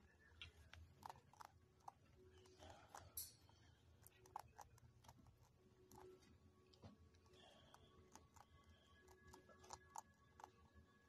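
Faint, irregular crunching clicks of a chinchilla nibbling a small treat.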